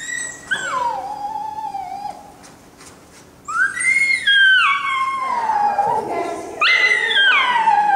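A dog howling: three long, high calls, each sliding down in pitch.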